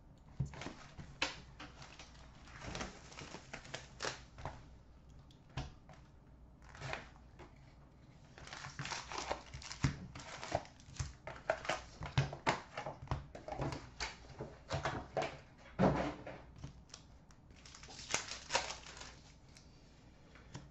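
Trading-card hobby box being opened by hand, and its card packs being handled and opened: scattered taps and clicks of cardboard, and crinkling of pack wrappers. The crinkling comes in a long run through the middle and again shortly before the end.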